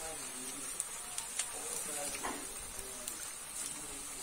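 Duck meat sizzling in a wok over a wood fire: a steady hiss with a few faint crackles.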